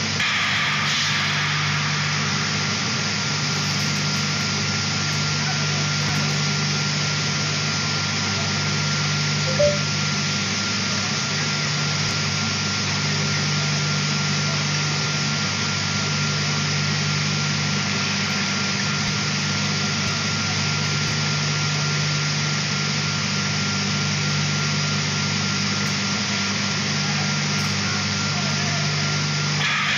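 Automatic shot blasting machine for steel bars running: a steady industrial drone with a low hum, a thin constant whine and a hiss of noise above it. One brief sharp sound stands out a little under ten seconds in.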